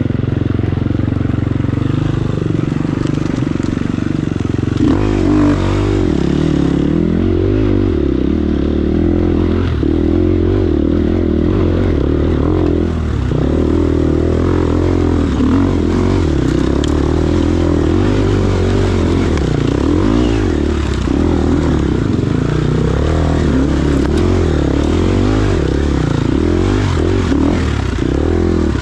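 Enduro motorcycle engine running continuously as the bike is ridden, its revs rising and falling throughout.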